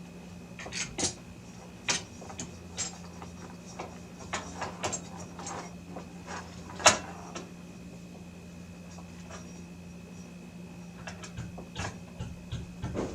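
Computer hardware being handled during a mining-rig build: scattered clicks, taps and clatter of GPU cards, riser boards and cables being fitted, the sharpest click about seven seconds in and a busier run of clicks near the end. A steady low hum runs underneath.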